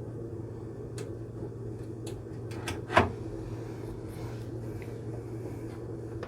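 Steady low hum with a few light clicks and one sharp knock about three seconds in, from parts of the car being shaken and handled while hunting a front-suspension knock.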